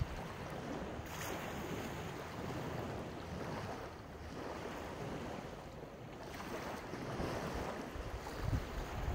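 Sea waves washing onto the shore, the surf swelling and easing, with wind buffeting the microphone, heavier near the end.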